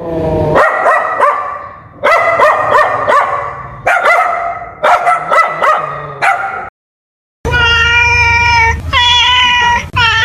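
A puppy yipping and whimpering in quick clusters of short, high cries. After a sudden brief silence, two long, drawn-out cat meows.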